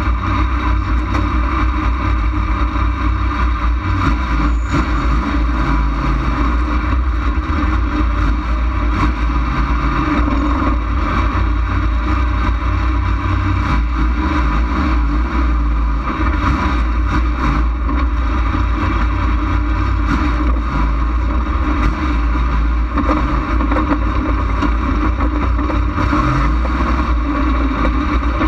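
Dirt-track race car's engine running steadily at low speed, heard through a camera mounted on the car's hood, with a heavy, constant rumble.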